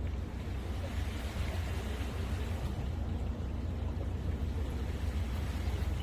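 Steady low rumble under an even hiss of calm sea water.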